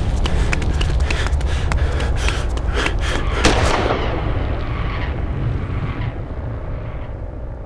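Film gunfire: a rapid, irregular string of gunshots over a heavy low rumble, ending in one louder bang about three and a half seconds in that dies away slowly.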